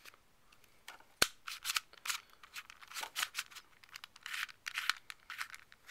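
Plastic Okamoto tower cube, a 2x2x3 cuboid twisty puzzle, turned by hand: a sharp click about a second in, then a run of quick plastic clicks and short scraping turns. The owner finds that it turns well but locks up at times.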